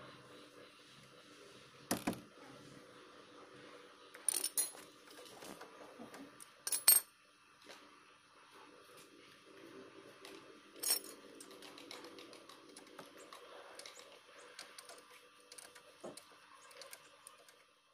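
Sharp metallic clinks and clanks of hand tools against the disc brake caliper and its parts as it is refitted over new pads: four short clusters about two seconds, four and a half, seven and eleven seconds in, the one near seven seconds the loudest, over a faint steady hum.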